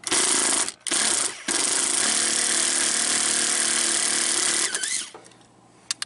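Hitachi cordless driver backing screws out of an RV door lock's mounting plate: two short runs, then one long steady run that stops about five seconds in.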